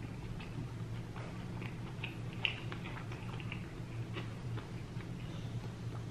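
Scattered faint clicks and small ticks, one louder about two and a half seconds in, over a steady low hum.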